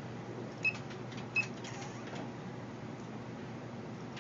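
Two short high beeps, about 0.7 s apart, from the sip-and-puff switch interface's feedback as it steps through iPod functions, over a low steady room hum.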